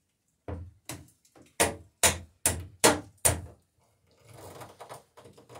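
A run of about seven sharp knocks on the dory's wooden planking during riveting, roughly two to three a second and loudest in the middle, followed by a short scraping rustle and one more knock at the end.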